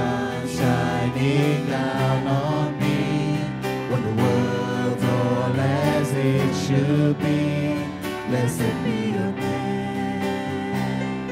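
Live worship band playing: voices singing over electric guitar and electric bass guitar.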